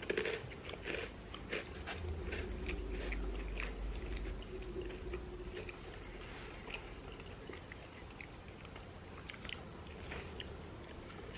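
Close-up mouth sounds of people chewing and biting food, with irregular short crunches and clicks. A low rumble runs for a few seconds in the first half.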